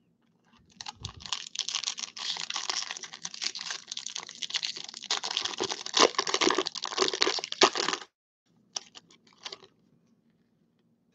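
Foil wrapper of a baseball card pack being torn open and crinkled, a dense crackling for about seven seconds that stops abruptly, followed by a few short clicks.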